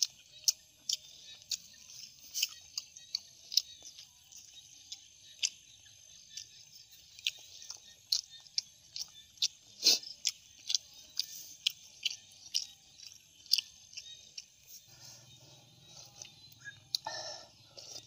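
A person chewing boiled suckermouth catfish close to the microphone: irregular wet smacks and clicks of the mouth. A steady high hiss runs underneath.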